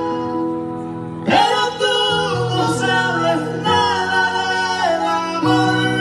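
Vallenato band playing live: button accordion holding chords and running melodies over electric guitars, bass and hand drum, with voices singing, a new phrase coming in about a second in.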